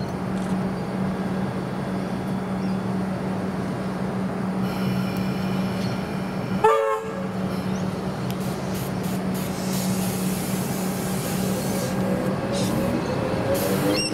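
Comeng electric multiple unit standing at a platform with a steady hum, giving one short horn toot about seven seconds in, then starting to pull away near the end with its traction motors whining up in pitch.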